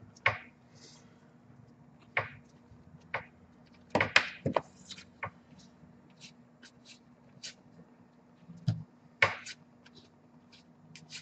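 Trading cards and packs being handled on a table: scattered taps, clicks and short scrapes, with the loudest cluster about four seconds in and another near nine seconds, over a faint steady hum.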